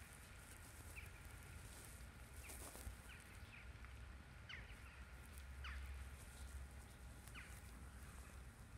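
Faint, scattered short chirps of small birds, roughly one call a second, over a steady low rumble.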